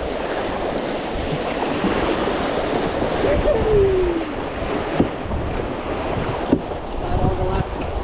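River rapids rushing and splashing around a canoe as it runs through them, a steady loud rush of whitewater. Two sharp knocks stand out in the second half.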